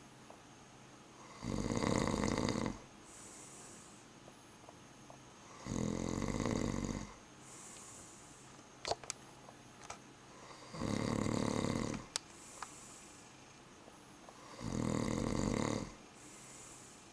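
A sleeping man snoring loudly, four long rasping snores about four seconds apart, with quieter breaths between them. A few brief sharp clicks come near the middle.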